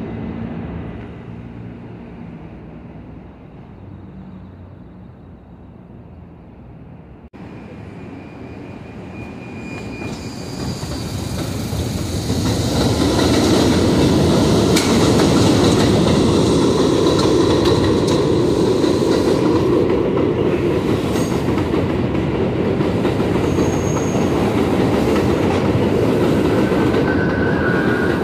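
An R62A New York City subway train on the 1 line runs along elevated track. Its wheels rumble and clatter over the rail joints, with brief high wheel squeals. The sound is quieter for the first several seconds, then grows louder from about ten seconds in and stays loud and steady.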